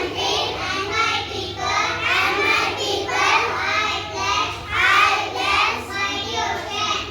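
Children singing, in phrases of about a second each.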